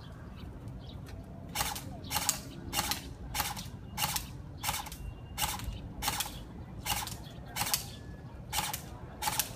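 Airsoft rifle fired shot by shot: about a dozen sharp cracks, evenly spaced at roughly one every two-thirds of a second, beginning under two seconds in.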